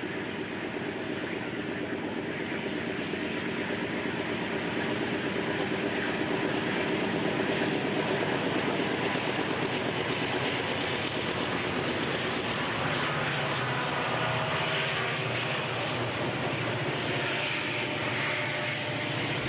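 CN eastbound freight train passing: its lead diesel locomotives' engines grow louder as they approach and go by, then the freight cars roll past with a steady rumble.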